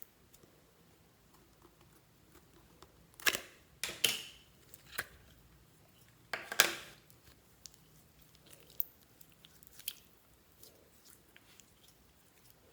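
Slime being mixed and pressed by hand: sticky squelching clicks and air-pocket pops. A few louder crackling pops come about three to seven seconds in, with fainter clicks after.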